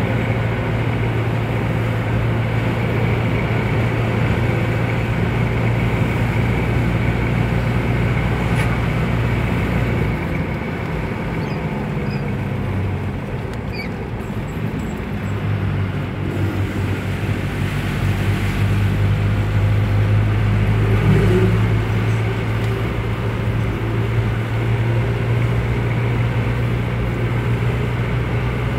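Car engine and tyre noise heard from inside the cabin while driving: a steady low hum. About ten seconds in the engine note falls and gets quieter, and about fifteen seconds in it picks up and steadies again.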